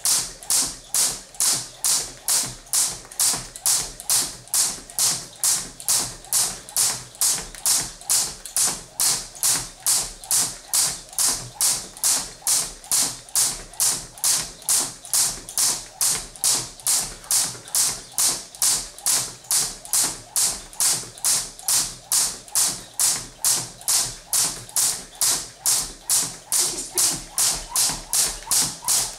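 Crossrope jump rope skipped at a slow, steady pace. The rope slaps the floor about twice a second in an even rhythm. This is the slow phase of a slow/fast/rest interval.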